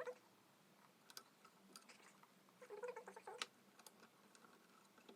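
Faint clicks and rustling of small plastic fan connectors and wires being handled and plugged in, with a short cluster of clicks about three seconds in.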